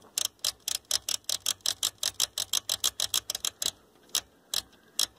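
Rotary input selector switch of a Nikko NR-515 stereo receiver clicking through its detents as it is turned back and forth, working freshly sprayed contact cleaner into the switch contacts. A fast run of about six clicks a second, slowing to a few spaced clicks near the end.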